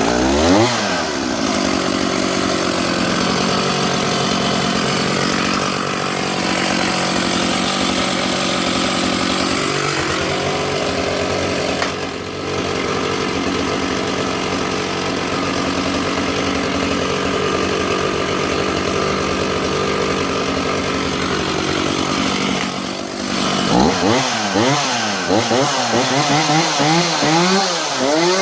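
Vintage Stihl 032 AVE 51cc two-stroke chainsaw catching and running at a fast idle, settling after a couple of seconds to a steady idle. In the last few seconds it is revved up and down repeatedly in quick blips.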